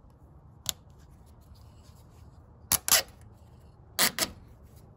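Sharp plastic clicks as a retaining washer is pushed down the ribbed plastic mounting rods of a transmission cooler kit: one click, then two quick pairs about a second apart.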